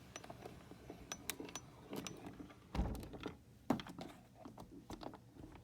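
Handling noises: scattered light clicks and taps, with a dull thump just under three seconds in and a sharper knock about a second later.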